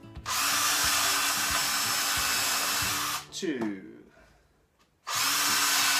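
High-speed power drill boring pilot holes into a wooden block: a run of about three seconds, the motor's pitch falling as it winds down, a short quiet gap, then a second run starting about five seconds in.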